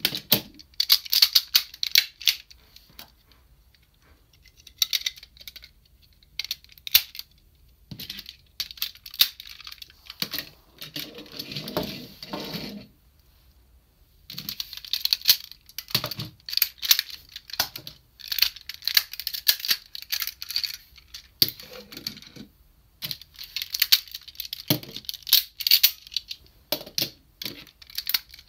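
Hard plastic parts of a DX Super ToQ-Oh combining robot toy clicking, clacking and snapping as it is taken apart into its toy trains, with a longer scraping rustle about eleven seconds in.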